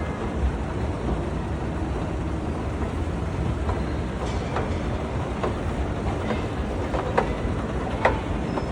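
Escalator running: a steady low rumble with a few sharp clicks, the clearest near the end.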